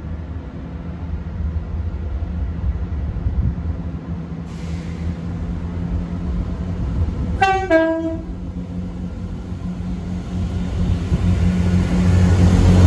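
Diesel train approaching, its engine rumble growing louder, sounding a short two-tone horn, high note then low note, a little past halfway.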